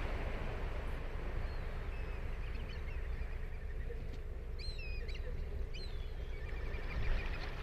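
Ocean surf washing steadily onto the beach, with a bird giving a series of short, high, sliding calls from about a second and a half in.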